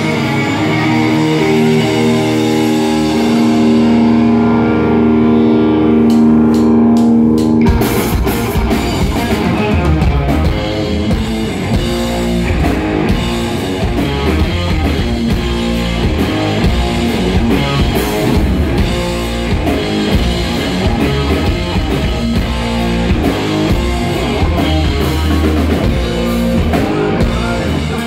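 Live rock band with loud electric guitars: sustained held notes ring over a low drone, then about eight seconds in the drums and full band come in together and play on in a driving rhythm.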